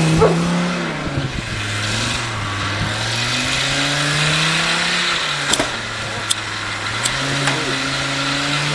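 Mercedes-Benz G-Class engine revving up and down under load as the 4x4 ploughs through deep snow, its pitch dropping and climbing several times. A dog barks once at the very start, and a few sharp clicks come in the second half.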